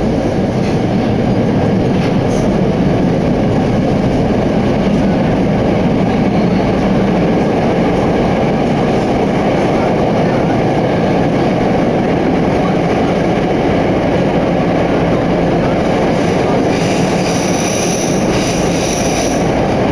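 Tokyo Metro Ginza Line subway train running through a tunnel, heard from inside the car: a loud, steady rumble of wheels on track. Near the end a high metallic squeal joins in for a few seconds.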